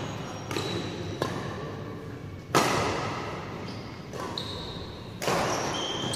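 Badminton rally: rackets striking the shuttlecock about five times, each hit echoing in a large hall, the one in the middle the loudest. Short squeaks of court shoes on the floor come in the second half.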